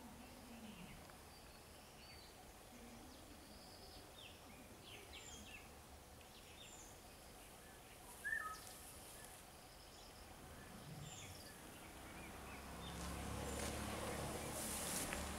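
Outdoor ambience of small birds chirping in short scattered calls over a faint hiss, with one louder short call about eight seconds in. A low hum and rushing noise build over the last few seconds.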